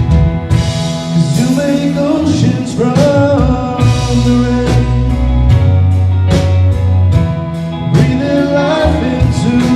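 Live worship band playing a song with a singer's voice over drums and bass.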